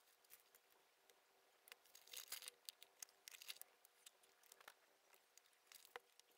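Faint handling noises of an electronics kit being unpacked: crinkling plastic parts bags and light clicks and taps of small parts set down on a cutting mat. They are busiest about two seconds in, with a sharp click near the end, over a faint steady hum.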